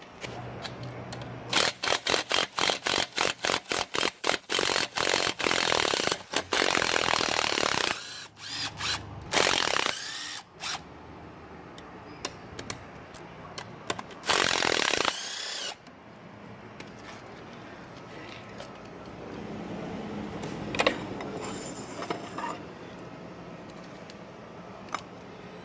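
Power wrench running in many short rapid bursts, then a few longer runs, backing out the 12 mm bolts on a Suzuki 140 outboard's lower unit. The second half is quieter, with a few clicks of tool handling.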